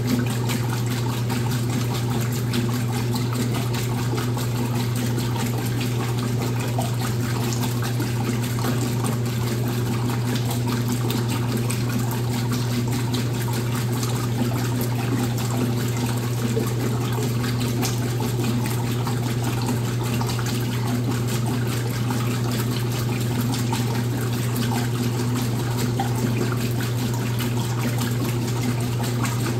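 Washing machine running: a steady motor hum under the even rush of water moving in the machine.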